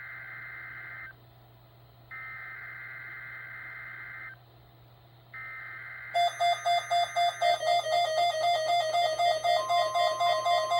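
NOAA Weather Radio SAME alert header: three bursts of two-tone data screech, about two seconds each with short pauses between, sent ahead of a tornado-drill alert. About six seconds in, a weather-alert receiver's alarm starts beeping rapidly, about four beeps a second and louder than the header, and a steady tone joins near the end.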